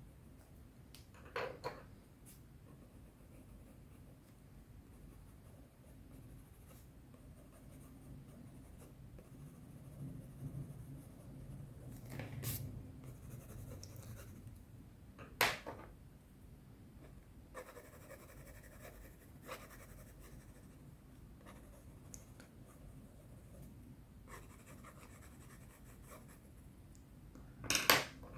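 Colored pencil scratching across sketchbook paper in drawing strokes, with a few sharp clicks scattered through, the loudest near the end.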